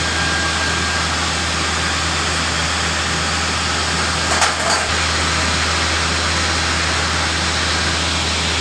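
An engine running steadily at a constant speed, with a low hum under an even mechanical noise. A couple of sharp knocks sound about four and a half seconds in.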